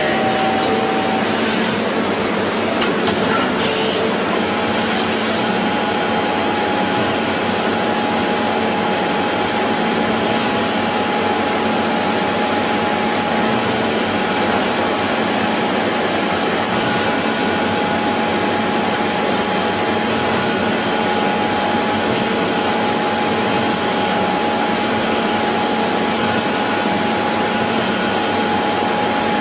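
CNC machine tool running steadily: a constant machining noise with several steady whining tones from the spindle and drives.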